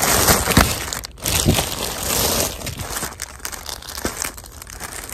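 Clear plastic garment bags crinkling and rustling as bagged shirts are handled and stacked, loudest in the first two and a half seconds, then softer.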